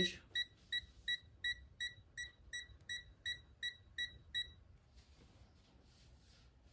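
Themisto TH-M98 digital multimeter in non-contact voltage (NCV) mode beeping quickly, about three short high beeps a second, as it senses live voltage in a power cable. The beeping stops about four and a half seconds in, leaving faint handling noise.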